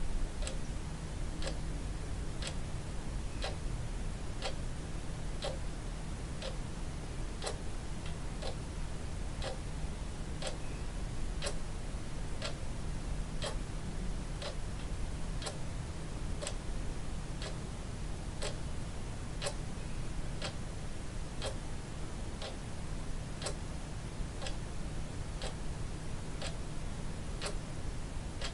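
A clock ticking steadily, about two ticks a second, over a low hum.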